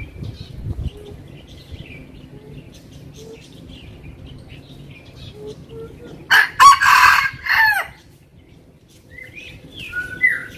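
F1 junglefowl rooster crowing once, a short crow of about a second and a half starting about six seconds in. Faint chirps come before it and a few short bird calls near the end.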